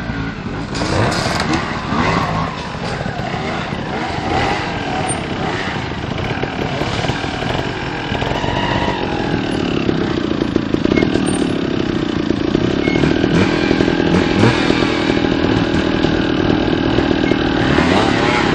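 Trials motorcycle engine running on a rocky climb, growing louder from about halfway through, with people talking nearby.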